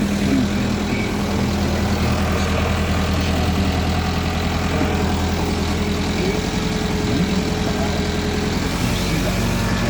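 Heavy diesel engine of earth-moving machinery running steadily at an even speed.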